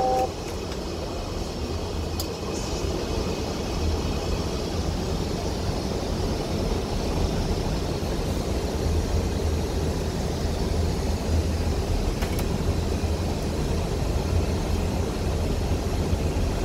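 Steady flight-deck noise of an Airbus A319 on approach: a deep rumble under an even airflow hiss. A two-note electronic tone cuts off just as it begins, and there are faint clicks about two seconds in and again about twelve seconds in.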